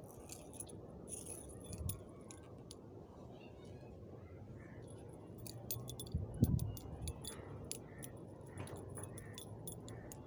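Small metal objects jingling and clicking in quick, irregular clusters of sharp ticks, over a steady low rumble, with a dull thump about six and a half seconds in.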